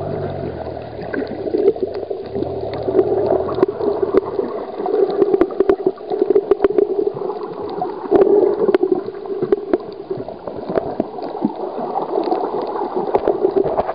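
Muffled underwater sloshing and gurgling picked up by a submerged camera over a reef, dotted with many sharp clicks. A low rumble fades out about four seconds in.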